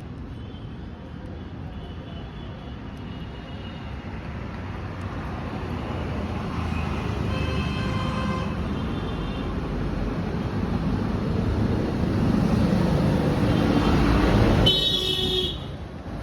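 Road traffic: a vehicle's engine and tyres grow steadily louder as it passes close, then drop away suddenly near the end, with short horn toots about halfway through and again near the end.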